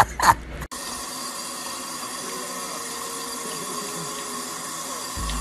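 Water running steadily from a bathroom sink faucet in a thin stream into the basin. Just before it, in the first moment, come a few short loud sharp sounds that cut off abruptly.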